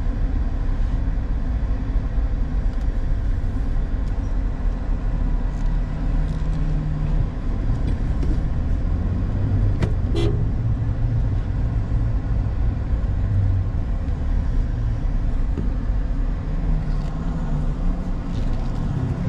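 A car driving slowly: its engine's hum drifts up and down in pitch over a steady low road rumble. There is one short, sharp sound about halfway through.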